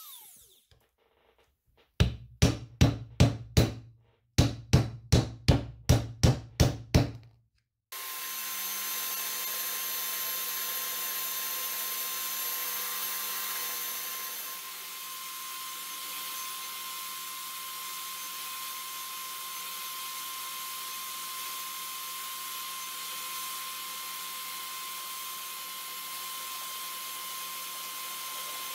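Two bursts of sharp, ringing knocks, about three a second, then an electric drill rigged as a small lathe runs steadily, spinning a wooden handle while sandpaper is held against it: a steady motor whine under a sanding hiss.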